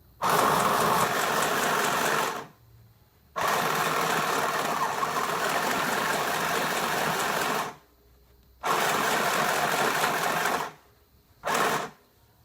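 Mini portable sewing machine running in four bursts of stitching, each starting and stopping abruptly: about two seconds, then about four, then two, then a brief half-second spurt near the end.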